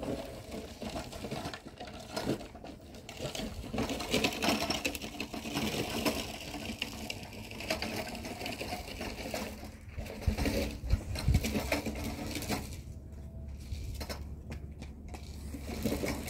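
Dry twigs and branches burning in a small open fire, crackling and popping in dense, irregular snaps, with a few low thumps about ten seconds in.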